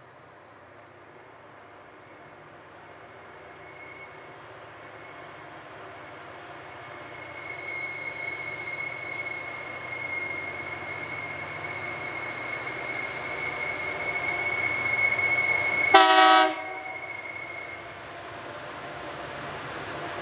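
Wheel flanges of a heavy diesel-hauled grain train squealing in high steady tones on a sharp curve, growing louder as the locomotives approach over a low engine rumble. About three-quarters of the way in, the lead locomotive gives one short, loud blast of its horn.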